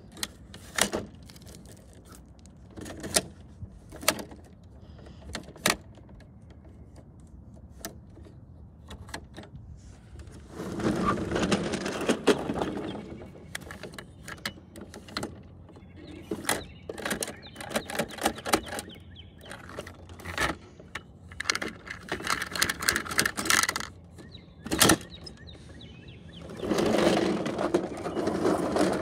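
Plastic toy side-loader garbage truck and toy wheelie bins handled on asphalt: scattered clicks and knocks of hard plastic, a run of rapid clattering in the middle, and two stretches of gritty scraping, one about ten seconds in and one near the end.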